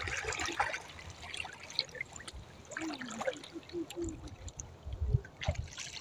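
Seawater trickling and splashing as the catch is handled, with a faint voice about halfway through.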